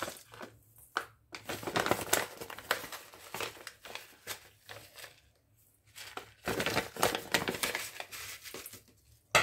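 Plastic seed pouch crinkling as it is handled and shaken out, with hemp seeds spilling into a stainless-steel bowl, in irregular rustling bursts with a short pause in the middle.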